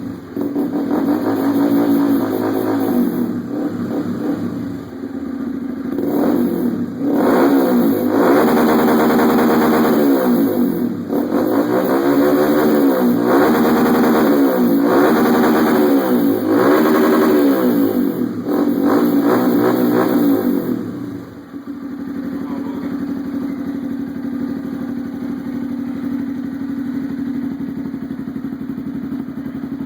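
Honda Bros single-cylinder motorcycle with a loud Roncar aftermarket exhaust, revved hard again and again, the revs rising and falling about once a second. About two-thirds of the way through it drops back to a steady idle.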